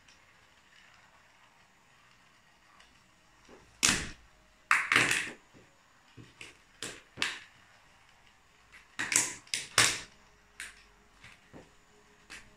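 Clusters of sharp plastic cracks and clatters, the loudest about four to five seconds in and again about nine to ten seconds in, with smaller clicks between: a high heel stamping on and breaking plastic toy train parts.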